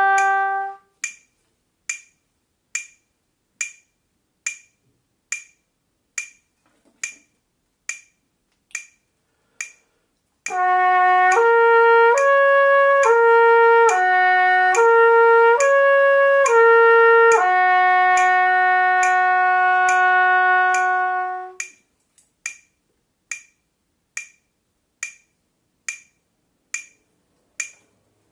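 Trumpet playing a lip-slur flexibility exercise in quarter notes, slurring smoothly up and down among three harmonics on valves 2 and 3 and ending on a long held low note. A metronome clicks steadily at about 70 beats a minute, alone for about ten seconds before the phrase and again after it.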